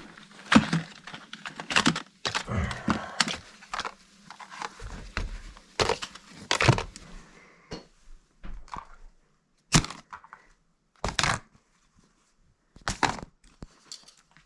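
Irregular sharp cracks and crunches of brittle material being crushed or crumpled. They come thick and fast at first, then as separate bursts every second or so with quiet gaps in the second half.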